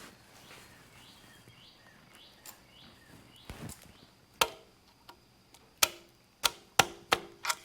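A bird chirping faintly outside, a few short descending notes, then about six sharp metallic taps with a brief ring, spaced roughly half a second to a second apart, as a push-on locking washer is set onto a harness mounting stud.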